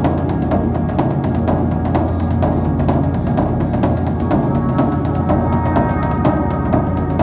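Background music: frequent percussion hits over a sustained low drone, with higher held tones joining about five seconds in.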